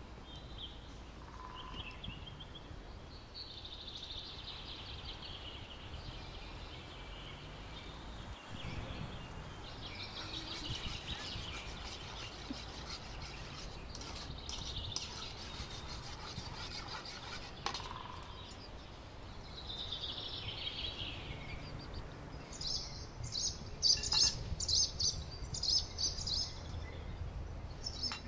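Songbirds chirping and singing in short, scattered phrases over a steady low background rumble. In the last five seconds comes a run of louder, sharp, scratchy high-pitched sounds.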